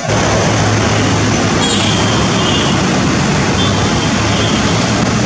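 ATR 72 twin-turboprop airliner at takeoff power climbing away after liftoff: loud, steady engine and propeller noise with a low propeller hum, starting abruptly. A faint high whine comes and goes in it from about two seconds in.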